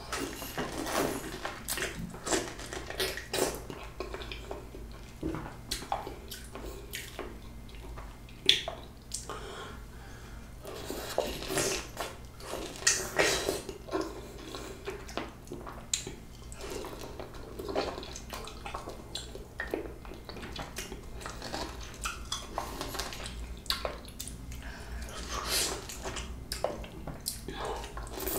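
Close-miked wet chewing, sucking and slurping of a juicy, peeled peach, an irregular run of smacks and squelches.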